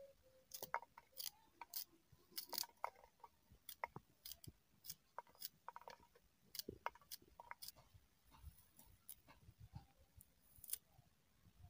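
Knife cutting crisp green garlic stalks into short pieces by hand: a string of irregular, short crunchy snips, about one or two a second.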